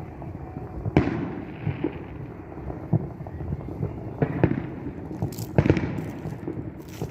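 Distant fireworks bursting: a run of sharp bangs, the loudest about a second in and again around two-thirds of the way through, over a steady low rumble of smaller reports.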